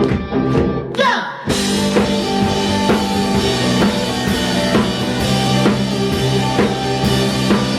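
Live rock band playing a song's instrumental intro: light, evenly spaced percussion, then about a second and a half in the full band comes in with drum kit and sustained instruments.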